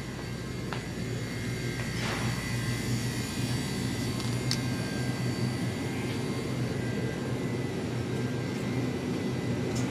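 Steady low hum of supermarket refrigeration and air handling from open refrigerated display cases, growing slightly louder, with a few faint clicks.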